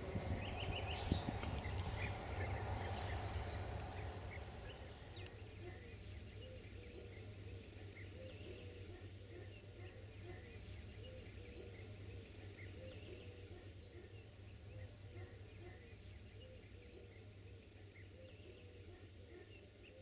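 Insects trilling steadily in a high, even pitch, over the fading low rumble of a departing passenger train that dies away in the first few seconds. After that a short low call repeats a little more than once a second.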